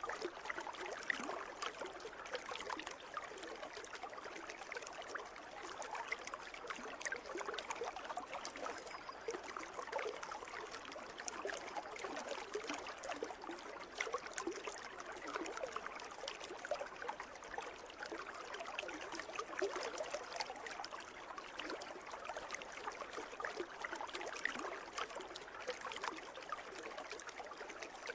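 Water in a pool trickling and splashing steadily, a continuous busy patter of small droplets with no pauses.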